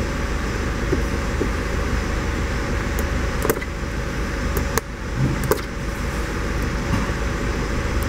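A few sharp plastic clicks as a coolant hose quick-connect clip is worked loose and the hose pulled off its fitting, over a steady low hum and hiss.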